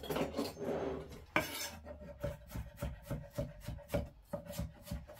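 A clatter of kitchen utensils with a sharp knock, then a chef's knife chopping water chestnuts on a wooden end-grain cutting board: a steady run of quick strokes, about three a second, from about two seconds in.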